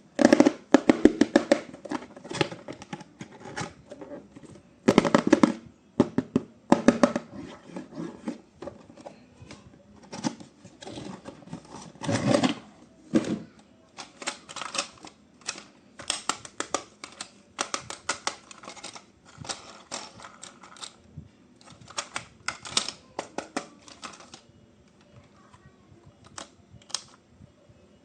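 Irregular rapid clicking and crackling of plastic and cardboard toy packaging being handled, loudest in short flurries and thinning out near the end.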